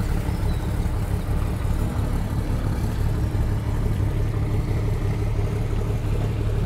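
Houseboat engine running steadily under way, a constant low hum.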